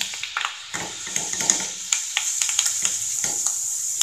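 Dal deep-frying in hot oil in a wire mesh strainer, a steady sizzle with many small crackles.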